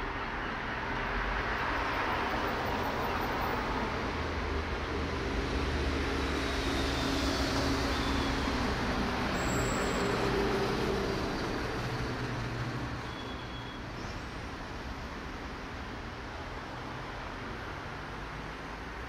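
Road traffic noise with low vehicle engine hum, growing louder over the first few seconds and easing off over the second half.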